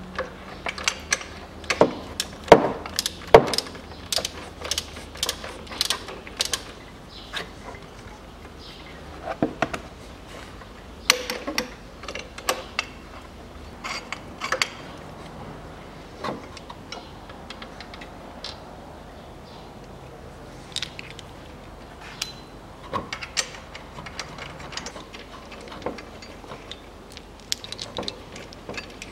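Hand ratchet clicking and metal tools and fasteners clinking and knocking as bolts are undone. The clicks come in irregular clusters, thick in the first several seconds and sparser after.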